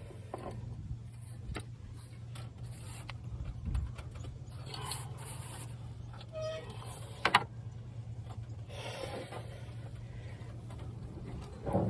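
Sporadic metal clicks, knocks and scrapes from hand-tool work on the truck's alternator mounting, with a sharp click about seven seconds in, over a steady low hum.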